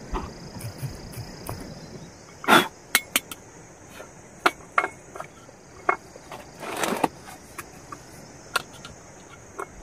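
Steel camping mugs knocking and clinking as they are handled and set down on a wooden chopping board: about ten sharp knocks, the loudest about two and a half seconds in. A steady high-pitched hiss runs underneath.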